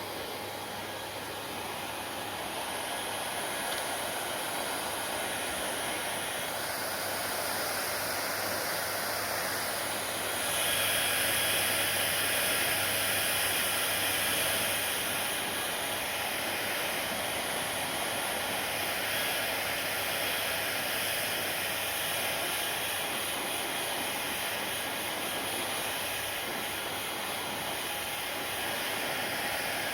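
Hair dryer running with a steady rushing blow of air and motor noise; about ten seconds in it becomes louder and brighter, as if moved closer or turned up, then settles back a little.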